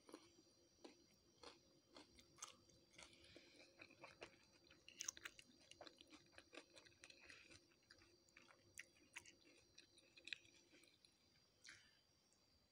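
Faint close-up chewing of fried chips and chicken, with many irregular crunchy clicks and crackles.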